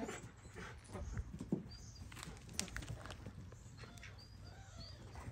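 Faint pattering and scuffing of animals' feet moving about at a wire-fenced pen, with a few faint, short, high chirps.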